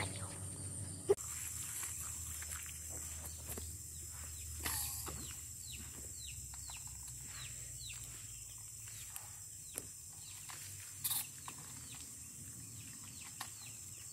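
Outdoor wildlife ambience: a steady high insect drone with many short, falling chirp calls repeating irregularly. A sharp knock about a second in and a brief noisy burst near 11 s stand out.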